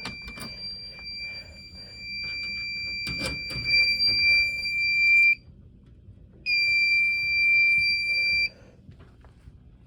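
Fire alarm sounding a steady high-pitched tone. It cuts off about five seconds in, sounds again for about two seconds, and stops. A few clicks come shortly before the first cut-off.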